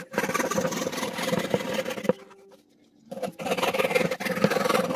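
Bench-mounted power tool cutting a small pine board, a steady motor hum under the noise of the cut. It runs for about two seconds, stops for about a second, then starts again.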